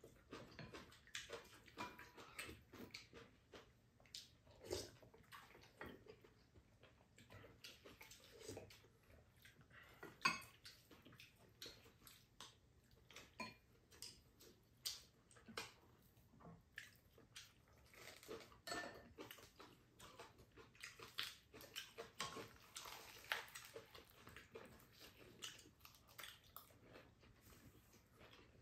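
Faint table sounds of a meal: chopsticks clicking and scraping against ceramic bowls and a frying pan, with soft chewing in between. One sharper click about ten seconds in is the loudest.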